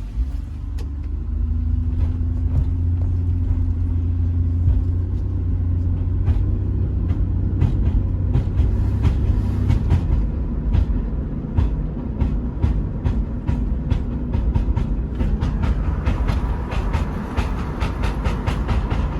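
Car driving with a steady low road-and-drivetrain rumble and repeated sharp clunks from under the car, which come more often near the end. The clunking persists after a new passenger-side lower control arm with ball joint and a new rear sway bar link, so the fault is still unidentified suspension play.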